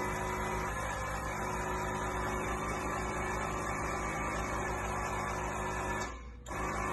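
Harley-Davidson Softail Breakout's V-twin engine idling steadily with the bike standing still. The sound drops out briefly about six seconds in.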